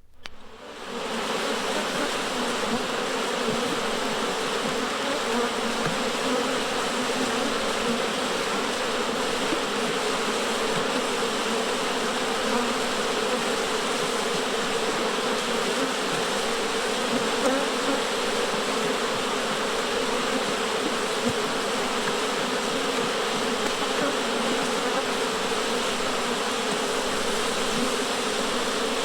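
Steady, dense buzzing of a swarm of insects, starting about a second in, played back from a vinyl sound-effects record.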